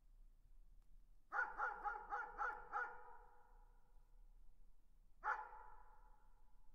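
A dog barking in the distance: a quick run of six barks about a second in, then a single bark near the end, each trailing off in echo.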